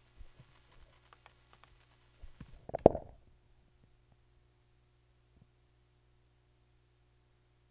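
Light typing on a computer keyboard, a scatter of soft key clicks, over a faint steady electrical hum. About three seconds in comes a brief, low, muffled rumble, the loudest sound.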